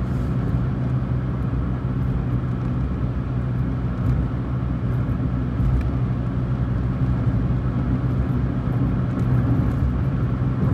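Steady engine and road rumble heard inside a moving car's cabin.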